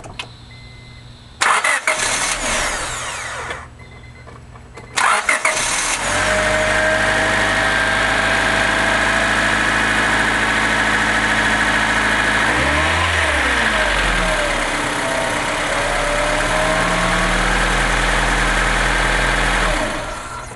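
Honda Civic started twice on a small lithium battery: a first start of about two seconds that fades out, then a second start whose starter cranking catches into a steady four-cylinder idle, which runs for about fourteen seconds before it is switched off near the end.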